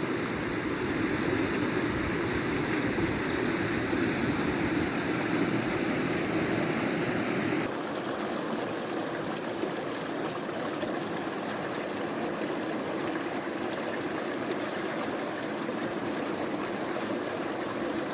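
Stream water flowing steadily. About eight seconds in the sound shifts and gets a little quieter.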